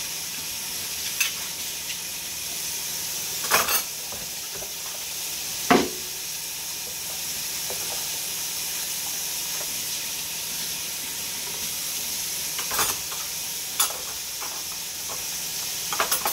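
Kitchen faucet running steadily into the sink. Over it come a handful of sharp clinks of silverware and dishes being washed and handled, the loudest about six seconds in.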